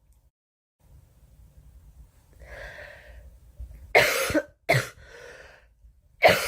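A girl coughing: two coughs close together about four seconds in, and another near the end.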